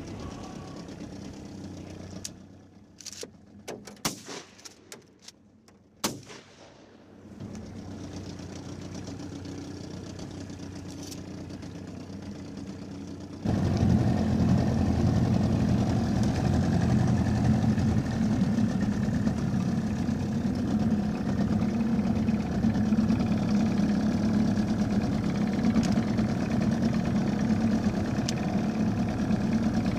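A small boat motor running steadily, cutting in abruptly about halfway through. Before it, a quieter stretch with a quick series of sharp clicks and knocks.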